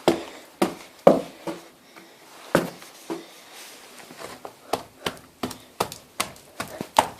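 A string of irregular sharp knocks and clicks in a small room, sparse at first and coming about two or three a second in the second half, the loudest about a second in.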